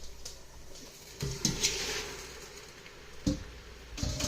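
Drained bowtie pasta tipped from a strainer back into the cooking pot: a wet sliding patter about a second in, then a sharp knock and a couple more knocks of the strainer against the pot near the end.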